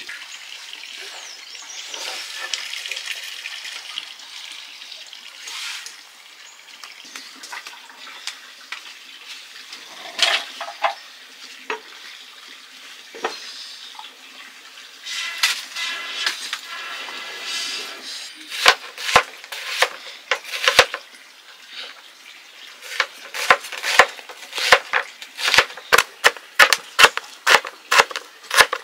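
Water and clinking pots being handled, then, from about two-thirds of the way through, a large kitchen knife chopping shallots on a plastic cutting board: sharp, uneven chops about one to two a second, the loudest sounds here.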